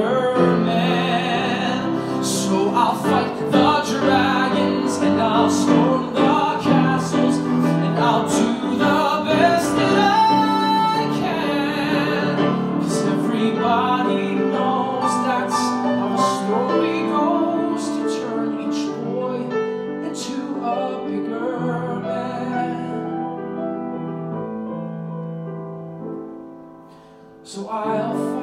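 Live musical-theatre song: a man singing long held notes into a microphone over piano accompaniment. The music quietens briefly near the end, then comes back in.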